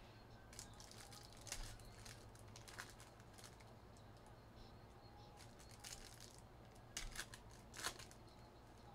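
Faint scattered crinkles, rustles and clicks of trading cards and foil pack wrappers being handled, a little louder near the end, over a steady low hum.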